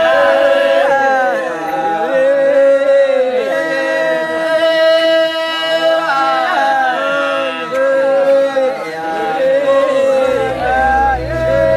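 Wodaabe men singing together in a dance chant: several voices hold a steady drone while others slide up and down in pitch. A deep low sound joins in near the end.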